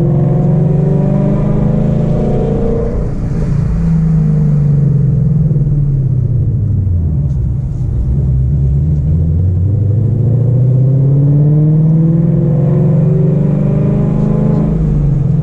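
Ford Mustang GT's 5.0 V8 engine pulling on the road, its note falling and rising several times as the car slows and accelerates again. Under load the car shakes with a bad vibration that comes and goes, which the owner suspects is the MT-82 transmission, clutch or flywheel.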